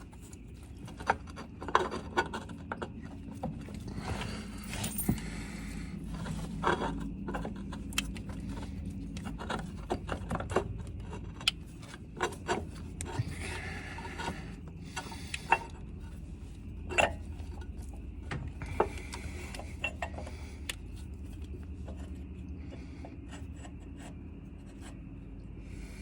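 Metal drive shaft parts being worked by hand onto their shaft: irregular clinks and knocks with a few short rasping scrapes, over a steady low hum.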